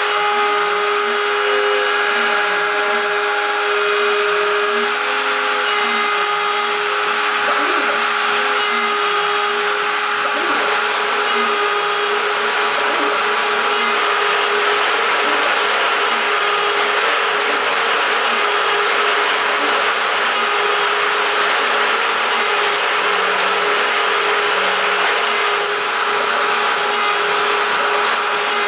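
WorkBee CNC router's spindle running as a small end mill cuts 6061 aluminium: a steady high whine over the hiss of cutting, without a break.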